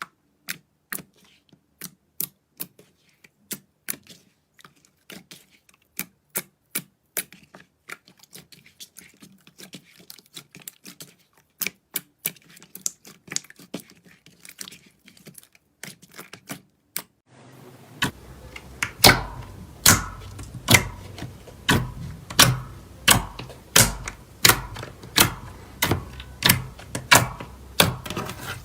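Slime being pressed and poked by hand, giving a run of sharp, crisp clicking pops, about two to three a second. About two-thirds of the way through it changes to a louder, fuller run of pops at about two a second.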